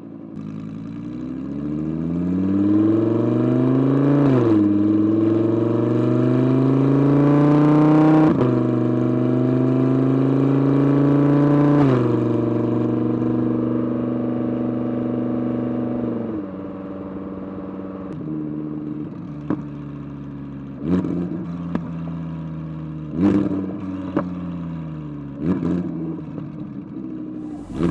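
Audi R8's 5.2-litre V10 through a titanium aftermarket exhaust, pulling hard through the gears: the pitch climbs and drops sharply at three upshifts. It then settles to a lower steady drone, with several short sharp throttle blips near the end.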